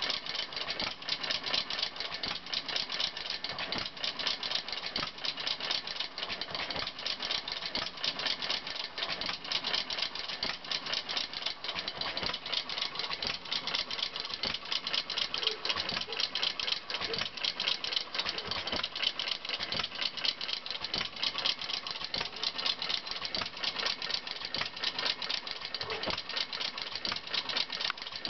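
Model Baker Ball Hopper Monitor engine, with battery-powered Hall-sensor spark ignition, running steadily with a rapid, even mechanical clatter. Its exhaust is damped by a sock over the muffler.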